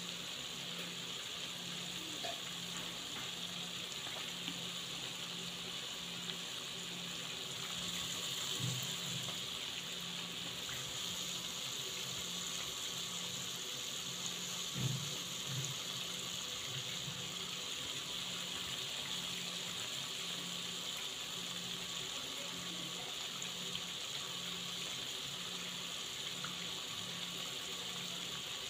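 Pieces of half-cake dough deep-frying in hot oil, a steady sizzle and bubbling. A low pulsing hum runs underneath, with a soft knock about 15 seconds in.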